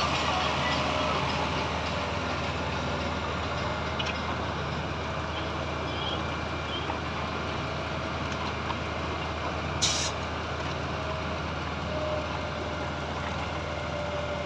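Heavy diesel engine of the concrete pump or transit mixer truck running steadily on the pour site, with a short air hiss about ten seconds in.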